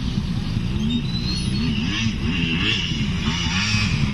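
Dirt bike engine revving up and down over and over as it rides the jumps of a motocross track.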